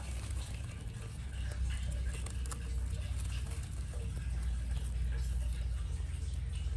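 Baby Brazilian short-tailed opossums scurrying and rustling through wood-shaving bedding, with light scratches and clicks of small claws, over a steady low hum.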